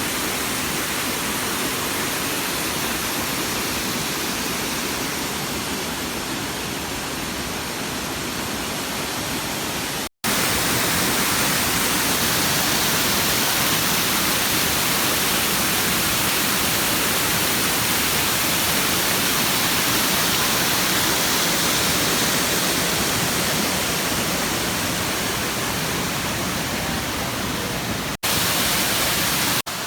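Steady rushing of a waterfall, an even roar of falling water. It breaks off for an instant about ten seconds in and again near the end.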